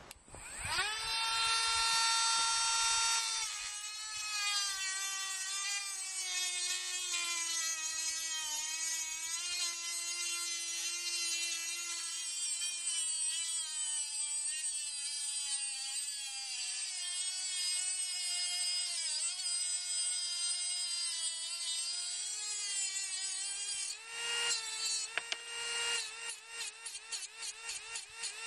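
Dremel 8100 cordless rotary tool motor spinning up to a high whine, then running for about twenty seconds at a lower pitch that sags and wavers as the bit works material. Near the end it returns to full speed, with a rapid run of short dips in speed.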